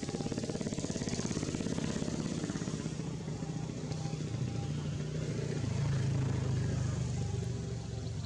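A motor vehicle's engine running, growing louder to a peak about six seconds in and then fading as it passes.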